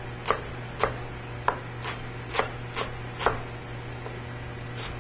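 A kitchen knife chopping leeks on a plastic cutting board: sharp knocks of the blade hitting the board about twice a second, which stop about three and a half seconds in.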